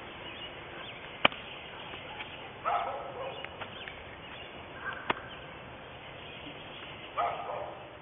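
An animal calling twice, about four seconds apart, over a steady hiss, with two sharp clicks in between; the first click, about a second in, is the loudest sound.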